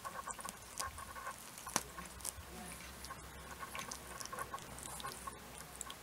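Four-week-old exotic kittens wrestling: light scuffling, with many small scratchy ticks of paws and claws and a soft rustle of fur. The sharpest click comes about two seconds in.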